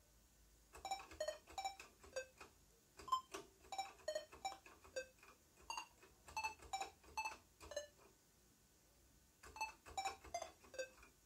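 AY-3-8913 three-channel sound chip in a TRS-80 Speech/Sound Pak, played note by note from the Dragon 32's keyboard: a run of short, bright electronic beeps of changing pitch picking out a simple melody. The notes start about a second in, stop for about a second and a half near the end, then go on.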